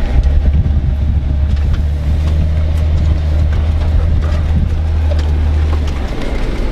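Jeep engine running with a steady low drone that drops off about six seconds in.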